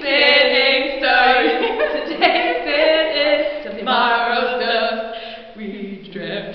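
Unaccompanied female singing: long held notes that step up and down in pitch, with short breaks between phrases.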